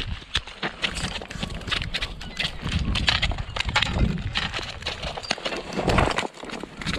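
Irregular knocks and scrapes on concrete as a freshly landed salmon is hauled up the harbour slope in a landing net and thrashes on the ground. A low rumble runs underneath.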